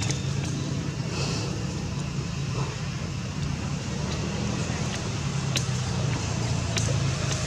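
Steady low background rumble with a few faint, sharp clicks.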